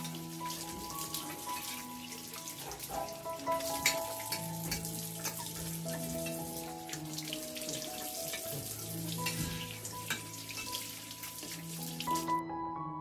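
Tap water running into a ceramic washbasin as hands splash and rub the bowl to rinse it, with soft background music throughout. The water stops abruptly near the end as the tap is turned off.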